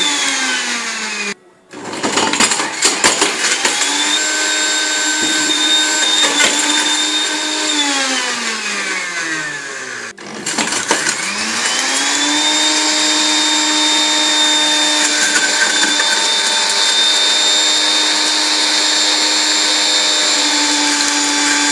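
Countertop blender motor grinding a Samsung Flight II mobile phone to pieces, the fragments rattling and clattering against the jar. The motor's whine winds down and spins back up twice, then runs steadily for the second half.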